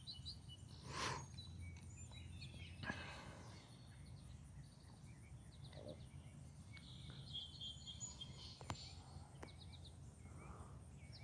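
Faint outdoor birdsong: scattered short chirps and quick trills from small songbirds over a low steady background rumble, with a single sharp click about three-quarters of the way through.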